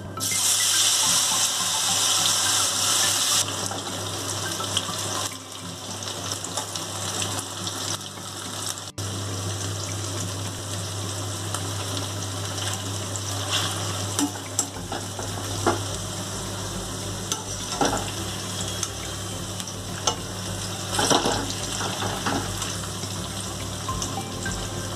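Batter-coated capsicum and French beans deep-frying in hot oil in a wok: a steady sizzling hiss, loudest in the first three seconds or so. A wire skimmer scrapes and clinks against the wok now and then.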